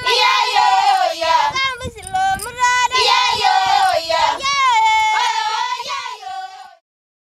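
A group of Maasai women singing together, several voices overlapping in a chanted song; the singing stops abruptly near the end.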